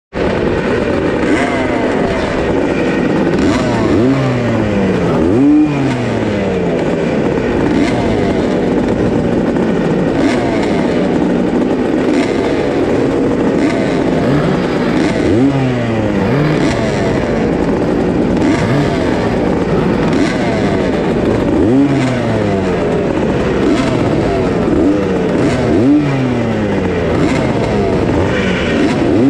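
A line of vintage motocross bikes idling together at the start, with riders blipping their throttles so that the engine note rises and falls every few seconds.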